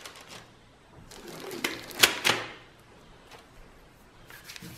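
Rubber gloves being pulled off the hands: a few short rustles and sharp clicks, most of them in the middle, with a few fainter ones near the end.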